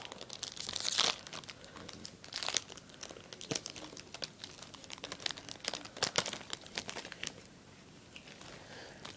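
A foil trading-card booster pack wrapper being crinkled and torn open, with irregular sharp crackles. The crinkling dies down over the last couple of seconds.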